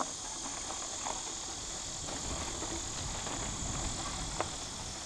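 Mountain bike rolling along an overgrown dirt trail: a low rumble from the ride and a couple of sharp clicks, under a steady high-pitched insect drone from the surrounding woods.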